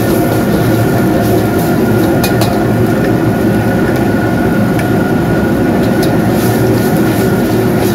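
Gas burner of a commercial wok range running at full flame, a steady roar, under a carbon-steel wok of liquid boiling hard. A metal ladle knocks lightly against the wok a few times.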